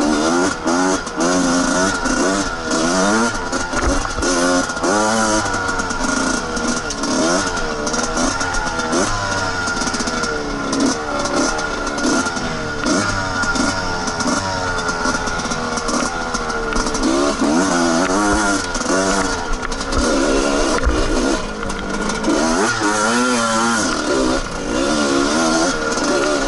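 Two-stroke dirt bike engine (Suzuki RM125) being ridden over a trail, its revs rising and falling over and over as the throttle is worked, with scattered short knocks and rattles.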